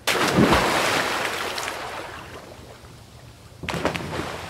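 Whooshing sound effects of an animated logo intro: a sudden swell of rushing noise that fades away over about three seconds, then a second, shorter swell near the end.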